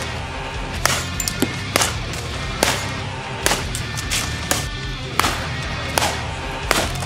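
Background music with a steady beat, a sharp drum hit landing a little under once a second.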